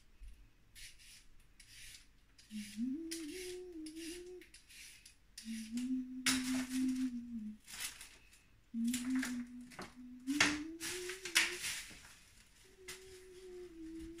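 Vegetable peeler scraping along a carrot in quick, uneven strokes, while a woman hums a simple tune in short phrases over it.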